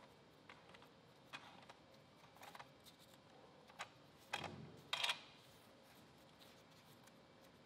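Scattered light clicks and knocks of gloved hands turning and tightening the plastic star knobs on a floor-scrubber squeegee assembly, with two louder knocks about four and a half and five seconds in.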